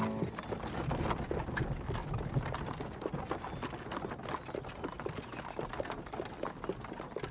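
Several horses walking, their hooves clopping in a dense, irregular patter, over the low rumble of horse-drawn wooden-wheeled carts rolling along.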